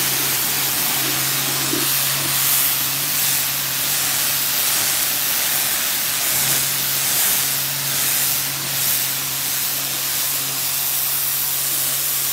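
Cordless battery-powered pressure washer spraying a jet of water onto tree bark: a steady loud hiss of the spray over the constant hum of the pump motor, which breaks off briefly about six seconds in.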